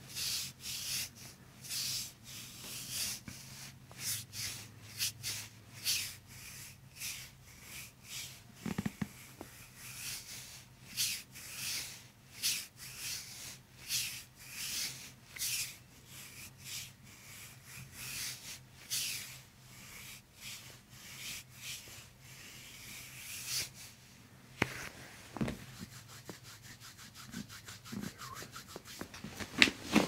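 Fingertips rubbing and pressing over bare skin on a person's back, a run of short, soft, scratchy strokes about one or two a second that thin out near the end, over a faint low hum.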